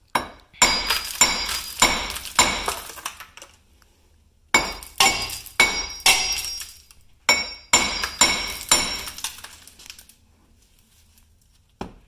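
Hammer striking the hub bearing assembly of a 2000 GMC Yukon to knock it out of the steering knuckle: sharp metal-on-metal blows with a ringing tone, about two a second, in three runs of roughly five strikes with short pauses between, stopping about ten seconds in.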